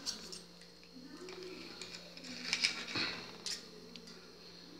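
A few faint, scattered clicks and light taps of dishes and cutlery being handled.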